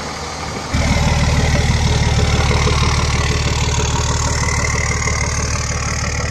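Third-gen Dodge Ram's 5.9 Cummins turbo-diesel idling steadily, getting suddenly louder about a second in.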